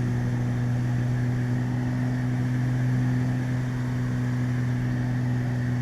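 Beechcraft Baron's twin piston engines droning steadily inside the cockpit, a constant low hum with no change in pitch.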